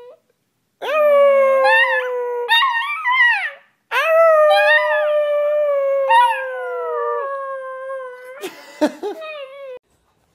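Black-and-tan dachshund puppy howling: two long howls, the first starting about a second in and wavering up and down, the second longer, held and slowly falling in pitch. A short rustling noise comes near the end of the second howl.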